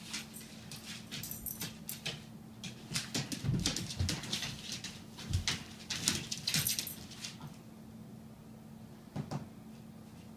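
A puppy playing with a person on the floor: a run of short scuffling and rustling noises with a couple of low thumps, a pause, then one more brief scuffle near the end.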